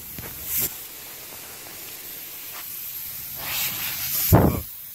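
Air hissing steadily from a leaking connection between the tire inflator's hose and the tire valve, with louder bursts about half a second in and near the end.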